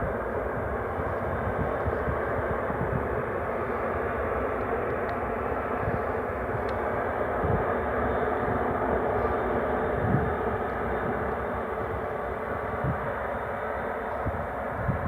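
Jet airliner's engines running as it taxis, a steady even rush.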